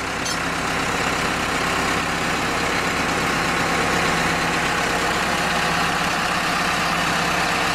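Full-hydraulic core drilling rig's engine and hydraulic power unit running steadily with an even mechanical hum.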